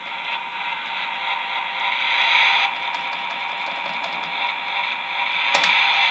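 Road Rippers Turbo Revver toy car playing its electronic engine-revving sound effect through its built-in speaker as the turbo dial on its roof is worked, louder about two seconds in, with a sharp click near the end.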